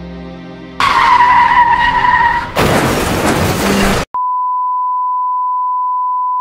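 A vehicle skid and crash, as film sound effects. About a second in, a tyre squeal starts suddenly with a slightly falling pitch. A loud burst of crash noise follows, then cuts off sharply into a single steady high beep like a flatline tone.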